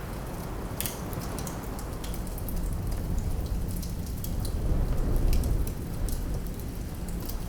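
Wood fire crackling, with scattered sharp pops at irregular intervals over a steady low rush of wind that swells briefly about five seconds in.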